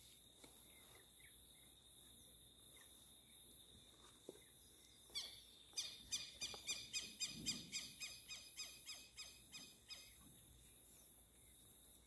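Faint outdoor quiet with a steady high insect buzz throughout. About five seconds in, a bird starts a rapid series of sharp repeated notes, about three a second, that runs for around five seconds and then stops.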